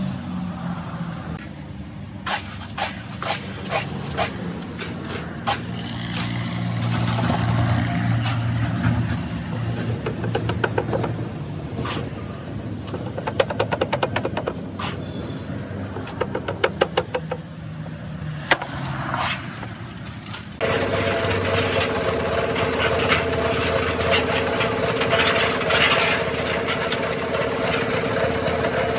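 Metal tile moulds and a hand scoop knocking and scraping as wet concrete mix is scooped into the moulds, with scattered knocks and quick runs of clicks. About two-thirds of the way through, a concrete mixer's motor starts suddenly and runs with a steady hum.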